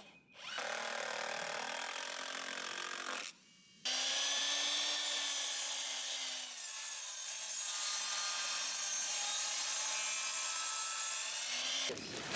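Sliding compound miter saw running and cutting through wooden boards, in two stretches with a brief break about three seconds in.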